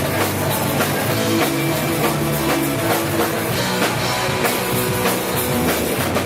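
Rock band playing live: drum kit driving the beat under guitar and bass in a dense, steady wall of sound.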